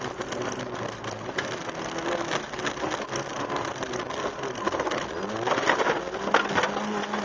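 Opel Astra GSi rally car heard from inside the cabin, its engine running hard on a gravel special stage. Engine pitch drops and climbs again between about four and six seconds in, over steady road noise and a scatter of sharp knocks and rattles.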